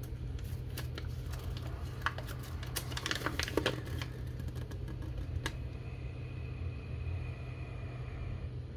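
Light clicks, taps and rustling from small items and packaging being handled, busiest in the first half, over a steady low hum.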